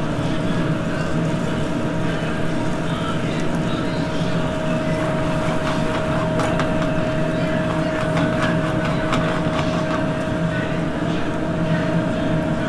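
Steady drone of a commercial kitchen's gas range, burners running on high, with a constant hum under it. A wine sauce bubbles and spits in a sauté pan as it reduces, giving faint crackles through the middle.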